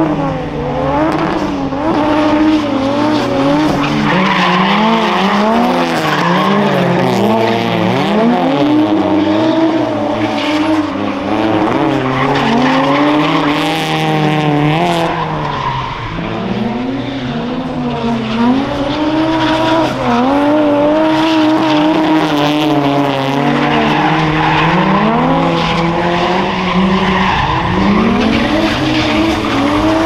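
Straight-piped 1JZ straight-six in a drifting Nissan S13, revved hard, its pitch climbing and dropping every second or two as the throttle is worked. Tyres squeal and skid under it.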